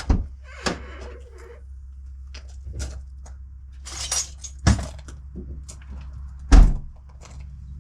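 Handling noise from gear and tools: scattered knocks, clicks and rustling, with two heavier thumps in the second half, the last and loudest about six and a half seconds in.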